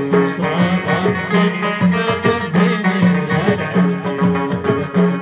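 Live Amazigh folk band music: plucked banjos and other strings over hand drums, with a steady beat.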